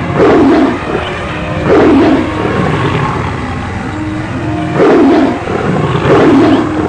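Four loud animal roars in a stampede sound effect, each falling in pitch, over a steady low rumble.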